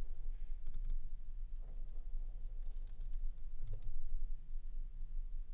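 Light clicks of a computer keyboard and mouse, in short clusters about a second apart, over a low steady hum.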